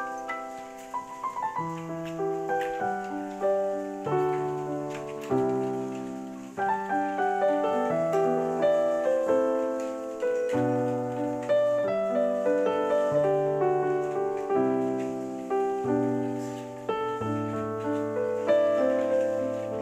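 Background piano music: a melody of struck notes, each fading away, over changing bass notes.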